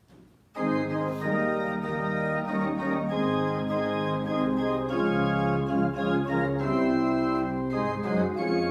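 Church organ starting suddenly about half a second in and playing full, sustained chords: the postlude that closes the service after the benediction.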